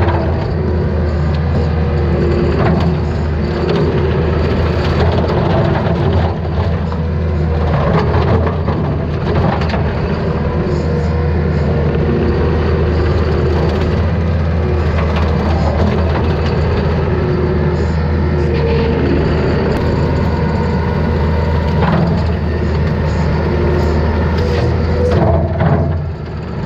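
Takeuchi TL250 track loader running steadily under load, driving a hydraulic brush cutter, with scattered cracks and snaps as the blades chop through brush and saplings.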